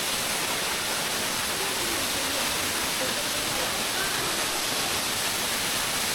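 Waterfall: water pouring onto rocks in a steady, unbroken rush.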